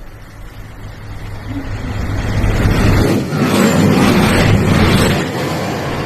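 A road vehicle going by, its low rumble and noise swelling to a peak a little past the middle and easing off near the end.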